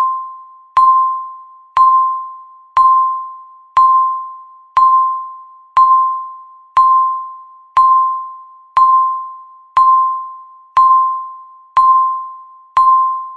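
Countdown timer beep sounding once a second, one for each second left: a single mid-pitched electronic tone that starts sharply and fades away like a struck bell, thirteen times in a row.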